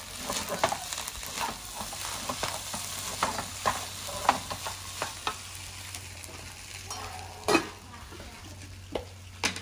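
Wooden spatula stirring and scraping fried rice in a nonstick frying pan over a gas burner, with a steady sizzle of frying underneath. The scraping strokes come quickly for the first half and thin out later. There is one sharp knock about three quarters of the way through.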